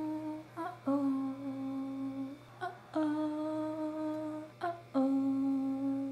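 A hummed melody of long held notes, about two seconds each, alternating between a higher and a lower pitch, each begun by a short sliding note.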